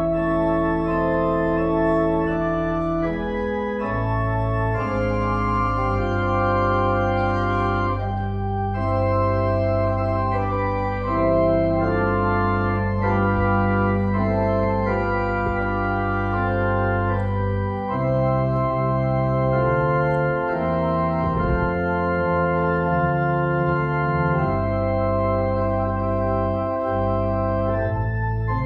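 Church organ playing slow, held chords over a low sustained bass line, the bass notes changing every few seconds.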